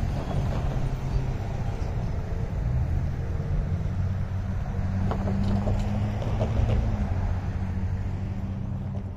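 Steady low engine rumble with a hum.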